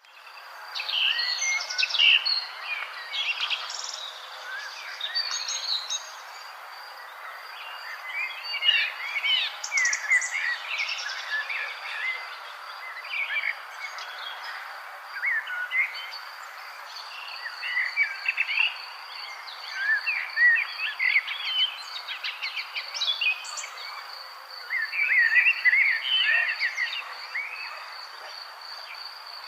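Songbirds chirping and warbling in repeated bursts, over a steady, fast-pulsing high insect trill.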